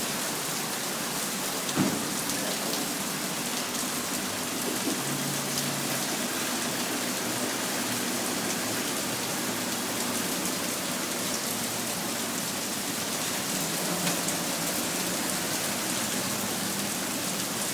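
Heavy rain pouring steadily, an even hiss of water, with a single sharp knock about two seconds in.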